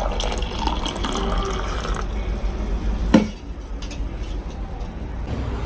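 Herbal decoction being poured into a glass. The pouring stops with a single sharp knock about three seconds in.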